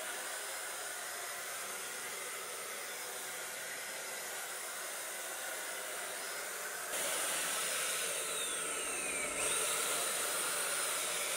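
HomeRight Super Finish Max electric HVLP paint sprayer running as it sprays paint, a steady airy rush like a hair dryer. It gets louder about seven seconds in.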